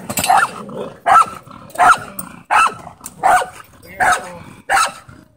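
A dog barking over and over at a steady pace, about seven barks, roughly one every 0.7 seconds.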